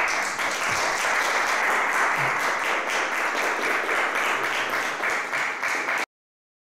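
Audience applauding: a dense patter of many hands clapping that cuts off suddenly about six seconds in.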